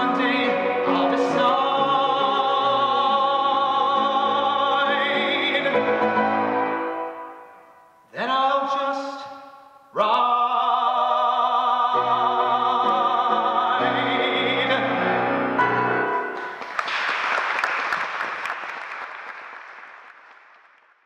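A man's trained singing voice holds long final notes with a wide vibrato over piano accompaniment, breaking off briefly near eight seconds before a last sustained note. Then comes about four seconds of applause that fades away.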